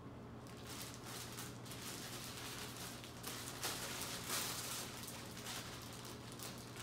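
Plastic bread bag crinkling as it is handled, loudest in a few bursts around the middle, over a steady low hum.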